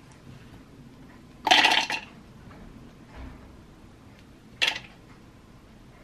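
Roasted hazelnuts dropped by the handful into the plastic bowl of a Cuisinart food processor, clattering. There is a longer clatter about a second and a half in and a short, sharp one near the end.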